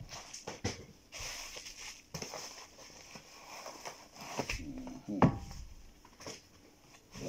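Plastic air-cushion packaging and bubble wrap crinkling and crackling as they are handled, in irregular bursts with scattered clicks and one sharp knock about five seconds in.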